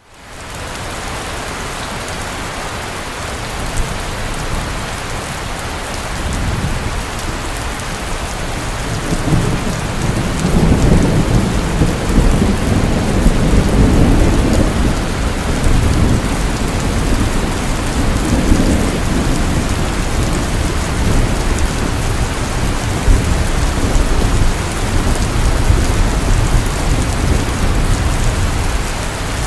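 Steady rain falling, fading in at the start. Heavy rolling thunder rumbles up about ten seconds in and goes on rumbling under the rain.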